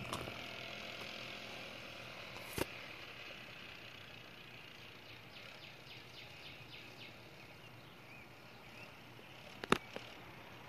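Faint, distant 150 cc go-kart engine slowly fading away, with a few faint bird chirps midway and two sharp clicks, one about two and a half seconds in and one near the end.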